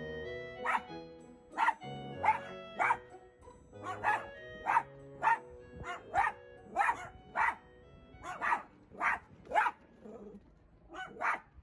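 Miniature dachshund barking sharply and repeatedly at a cat across a fence, about fifteen barks in quick runs of one to two a second, with a short pause near the end. Soft background music runs under the first two-thirds.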